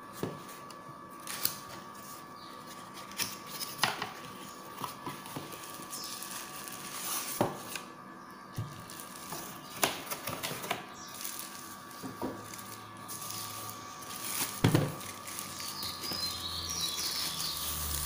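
Cardboard box and plastic bag being handled during unpacking: scattered taps, clicks and plastic crinkling, over a faint steady high tone.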